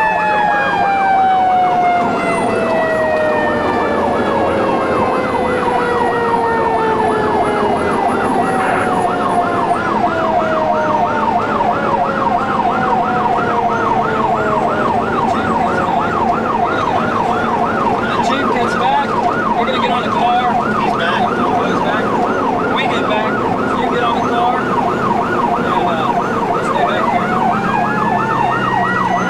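Fire truck sirens while responding: an electronic siren on a fast yelp, about three sweeps a second, over a second siren's long wail falling slowly in pitch during the first dozen seconds and rising again near the end.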